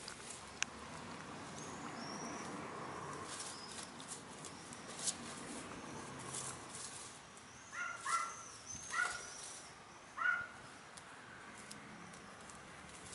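Domestic hens foraging in grass, giving a few short clucks in the second half among light rustling and pecking. High chirps of small birds are heard now and then.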